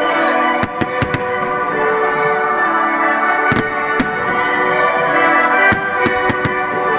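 Fireworks shells bursting with a dozen or so sharp bangs at irregular intervals, over loud orchestral music with brass.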